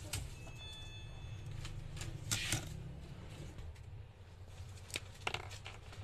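Small tools and a marker pen being handled on a silicone repair mat: scattered clicks and taps and a brief rustle, over a low steady hum. A short high beep sounds about half a second in.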